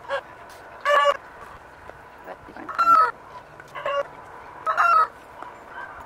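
Chickens calling: four short, loud squawking calls, each under half a second, roughly a second apart.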